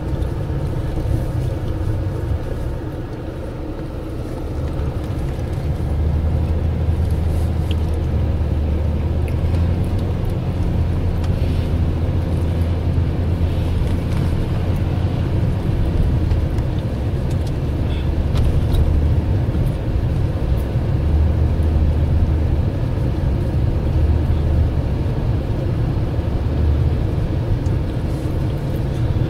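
Car cabin drive noise: a steady low rumble of the engine and tyres on the road, heard from inside the car, getting louder about six seconds in.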